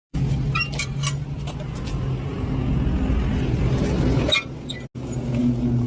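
A machine running steadily with a low hum and a few clicks about half a second to a second in; the sound breaks off abruptly for a moment near the end, then resumes.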